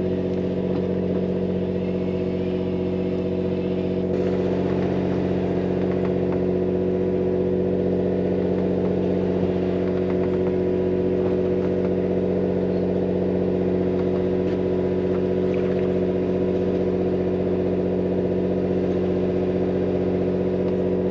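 Boat engine running steadily, a low droning hum that shifts slightly about four seconds in, with faint scattered ticks over it.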